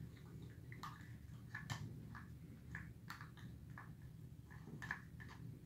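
Faint wet squishing and small ticks and taps, scattered every second or so, as thick slime glue is worked with a stick into a plastic cup of water.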